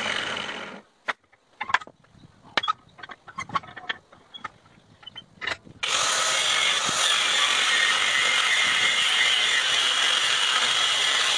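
Angle grinder cutting out, followed by a few seconds of scattered metallic clinks and knocks as a railroad spike is handled in a steel bench vise. About six seconds in, the grinder starts again and runs steadily with its disc grinding against the twisted steel spike.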